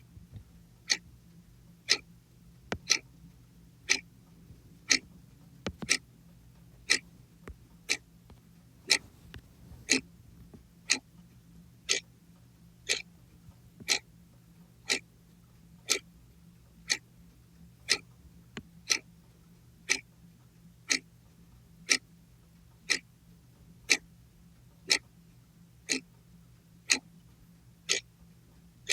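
Clock ticking once a second with sharp, evenly spaced ticks, and a few fainter extra clicks in between. A low steady hum runs underneath.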